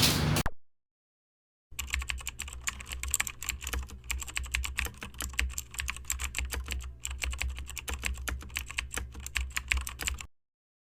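Rapid, irregular keyboard-typing clicks over a faint steady low hum. They start abruptly about two seconds in and cut off suddenly near the end.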